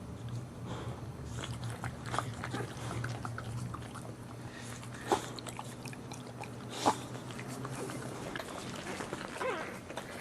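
A dog licking and chewing, with small wet clicks over a steady low hum and two sharp clicks about five and seven seconds in.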